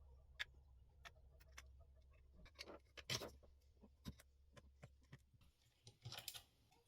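Faint scattered clicks and small scrapes of fan motor parts being handled and fitted together during reassembly, with one louder scrape about three seconds in.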